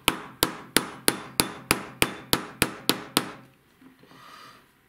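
Small ball-peen hammer tapping a steel pin punch to drive the gas tube roll pin into an AR-15 gas block: about eleven light, even metallic taps, roughly three a second, stopping a little past three seconds in.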